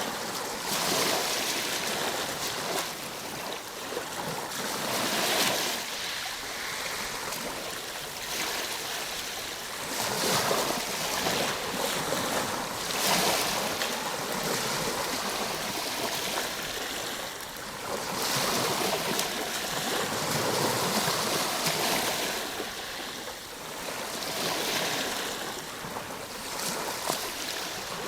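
Ocean surf breaking and washing in, a steady hiss of water that swells and eases every few seconds as waves come in.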